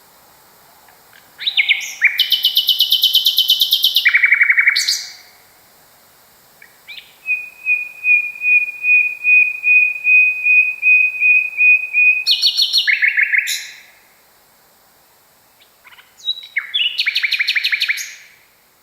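Common nightingale singing: three phrases of rapid, rattling trills, the middle one a long run of repeated whistled notes that grows louder before ending in a trill.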